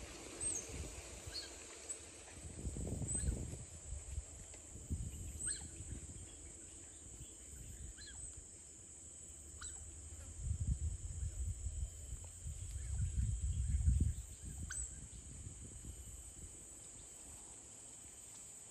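Wild otters calling with short, high-pitched chirps, one every second or few seconds at irregular intervals, over a steady high hum. A low rumbling noise swells in the middle.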